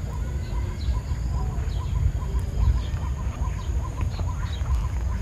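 Birds calling outdoors, with a steady run of short pips about four a second and scattered faint chirps, over a low rumble.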